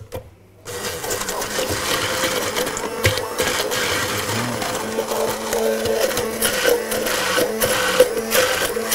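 Electric hand blender switched on about a second in and running steadily, puréeing the marinade.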